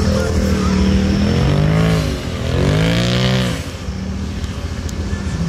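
A motor vehicle engine idling steadily, with two rises and falls in pitch about midway, like two quick revs, before it settles back to idle.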